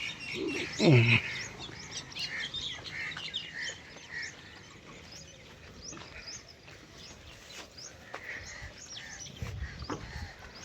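Many small birds chirping. About a second in comes one short, loud low call that falls in pitch.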